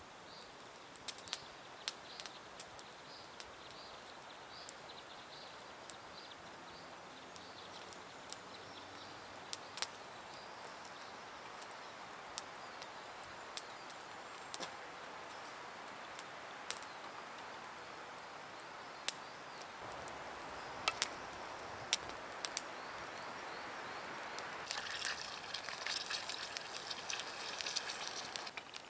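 Campfire crackling: scattered sharp pops and snaps over a steady hiss. The hiss grows louder and brighter for a few seconds near the end.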